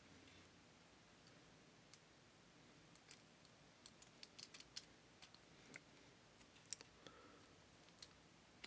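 Faint, irregular light clicks and taps from handling an HDMI cable, against near silence.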